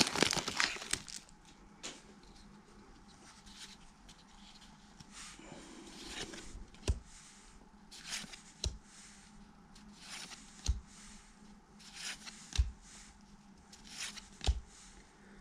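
Plastic trading-card pack wrapper crinkling as it is pulled off, then soft flicks and ticks of cardboard cards being slid one at a time off a stack, about one every second or two.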